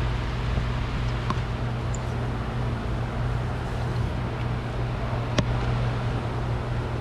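Steady low hum of running shop equipment, with a few light ticks and one sharp click about five seconds in.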